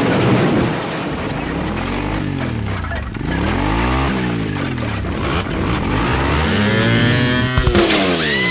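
A vehicle engine revving up and down several times, its pitch climbing and falling in repeated sweeps, with the band's music coming in near the end.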